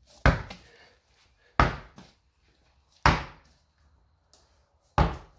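Four hard thuds, about a second and a half apart, each dying away quickly.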